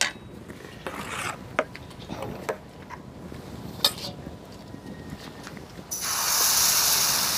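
Metal spatula and utensils clinking and scraping a few times, then from about six seconds in a steady sizzle as puda batter meets a hot tawa griddle.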